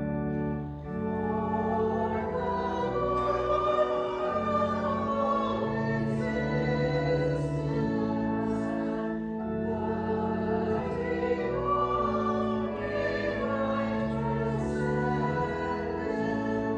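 Congregation singing a hymn or liturgical song together with organ accompaniment, the organ holding steady chords that change every second or two under the voices.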